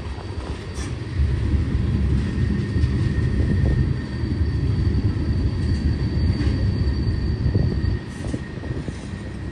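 Tank cars of a long freight train rolling past: a steady low rumble of steel wheels on rail, with a faint high whine through the middle.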